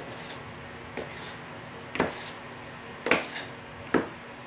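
Kitchen knife chopping down through soft dough and knocking on a metal-topped worktable: four sharp knocks about a second apart.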